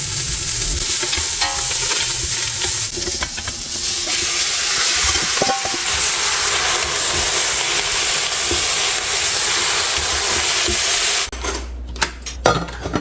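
Food sizzling and frying in a hot pan as a steady, loud hiss, with some stirring. It cuts off abruptly about eleven seconds in, followed by a few light clicks and knocks.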